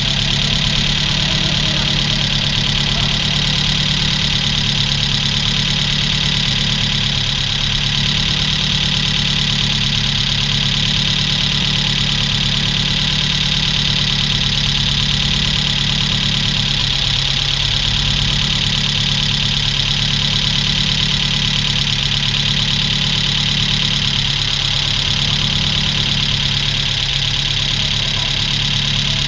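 Opel Astra GSi's C20XE 2.0-litre 16-valve four-cylinder petrol engine idling steadily, freshly rebuilt and in its first minutes of running.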